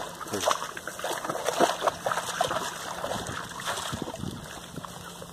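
A dog's muzzle splashing and sloshing in shallow, muddy ditch water in many small, irregular splashes.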